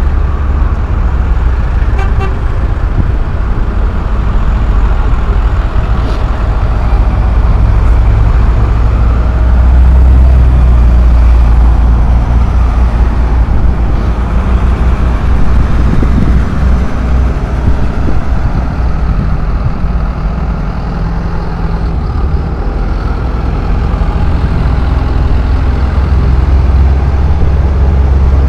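Diesel engines of large New Holland tractors running as they drive past in procession, a loud, steady low rumble that rises and falls slightly as each tractor passes.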